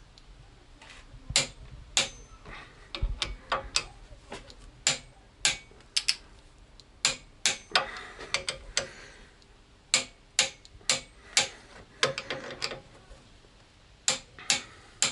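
Torque wrench ratcheting in short strokes, a string of sharp clicks, as the front wheel hub bearing bolts are tightened crosswise to 70 N·m.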